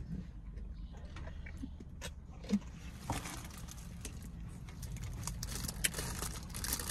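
Scattered small clicks and rustles, building near the end into the crinkle of a plastic snack wrapper being handled, over a steady low hum inside a car.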